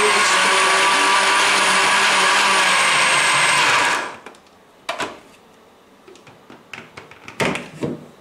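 Countertop blender running steadily as it purées boiled potato, then switched off about four seconds in. A few short knocks and clatters follow as the plastic jar and lid are handled.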